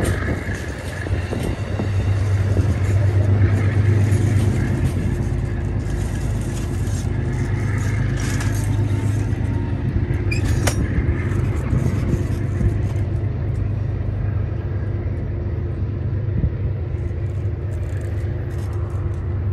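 Amtrak passenger train's stainless-steel coaches rolling past on the rails and drawing away, a steady low rumble throughout. A single sharp click comes about ten seconds in.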